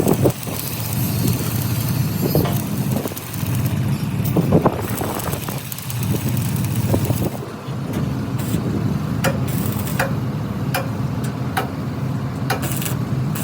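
An engine running steadily, with sharp knocks at irregular intervals, coming about once a second in the second half.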